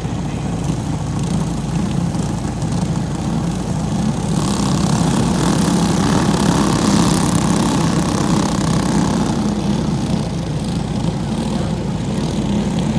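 Several small racing kart engines idling together in a steady drone, with a hiss that swells for a few seconds in the middle.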